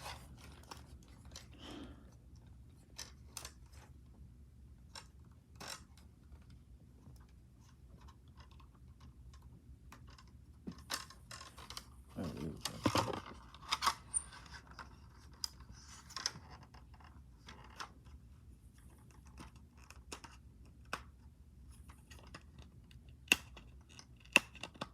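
Handling of plastic DVD cases and packaging: scattered small clicks, taps and rustles, busier about halfway through, with a few sharper clicks near the end.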